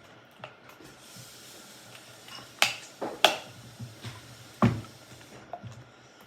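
Sticky homemade slime being worked by hand, giving three sharp snapping clicks over a low, steady background.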